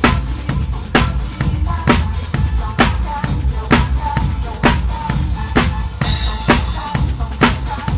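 Live band music driven by a drum kit: a steady beat of bass drum and snare, with a strong hit just under once a second over a continuous bass line. A cymbal crash comes about six seconds in.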